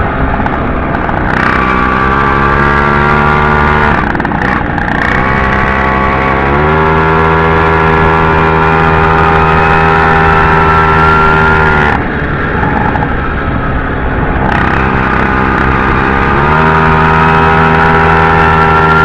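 Puch two-stroke moped engine running under way. It eases off twice, about 4 and 12 seconds in, and each time climbs back to a higher, steady pitch a couple of seconds later.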